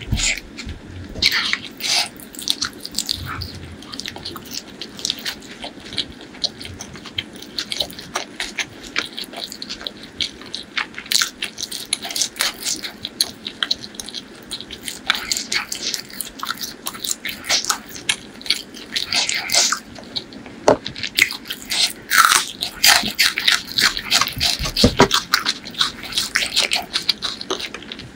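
Close-miked chewing of chicken liver and gizzard curry: a steady run of wet mouth clicks and smacks, busier in the second half.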